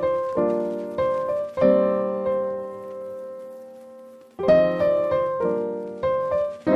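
Background piano music: chords struck and left to ring and fade, with one long held chord in the middle.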